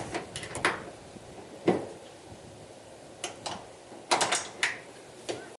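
Small latches on a wooden chicken-coop lid being worked, giving a string of sharp clicks and knocks in small clusters, the loudest under two seconds in.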